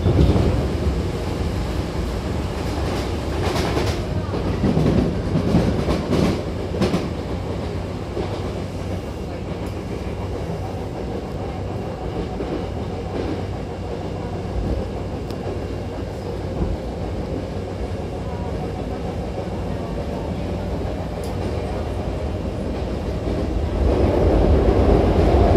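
Hankyu Railway commuter train heard from inside the car while under way: a steady rumble of wheels on rail. A few seconds in come a cluster of sharp clicks from rail joints or points, and near the end the running noise swells louder.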